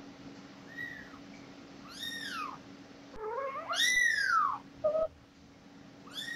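Kitten mewing repeatedly: about five high, arching mews, the longest and loudest about halfway through.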